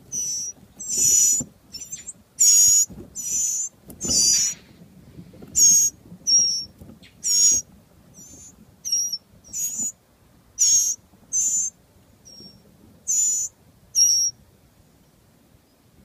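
Mockingbird nestlings begging to be fed: short, high, squeaky calls repeated about once or twice a second, stopping near the end.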